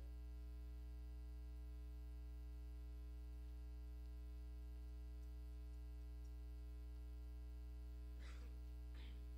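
Steady electrical mains hum with a stack of overtones on the recording, with two faint brief sounds near the end.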